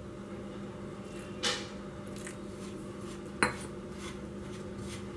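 Faint handling sounds as warm milk is worked by hand into a crumbly milk-powder dough in a plastic bowl. Two light knocks stand out, a soft one about a second and a half in and a sharper one past the middle, over a steady low hum.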